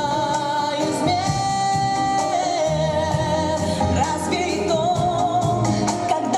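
A song with singing over instrumental accompaniment: long, held vocal notes with vibrato over a steady bass line.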